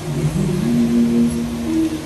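Show music played loud over outdoor loudspeakers: deep held notes that step from one pitch to the next every half second or so, over a steady hiss.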